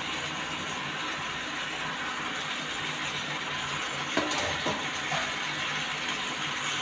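Capsicum and potatoes sizzling in oil in a steel pan on an induction cooktop, a steady hiss over a low hum. A few clicks and knocks of steel utensils against the pan come about four to five seconds in.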